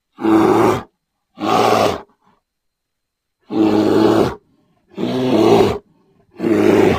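Five short, loud animal roars, each under a second long, separated by complete silence.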